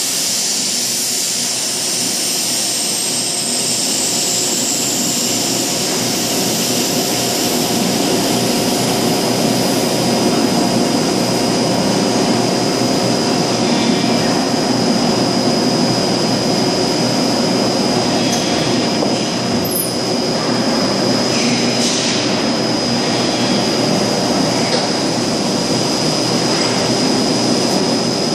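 Large extrusion blow-moulding machine running while it moulds a plastic drum: a steady, loud industrial drone with a hiss and a constant high whine over it, and a short louder rush of hiss about three-quarters of the way in.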